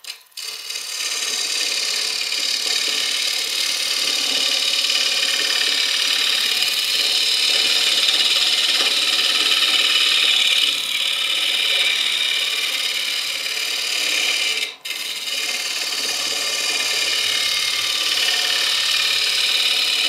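Round Hurricane carbide finishing tool cutting the outside of a wooden bowl blank spinning at full speed on a Robust lathe: a steady scraping cut, breaking off briefly about three quarters of the way through.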